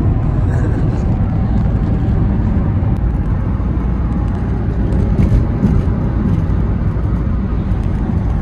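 A car driving on a highway, heard from inside the cabin: a steady low rumble of road and engine noise.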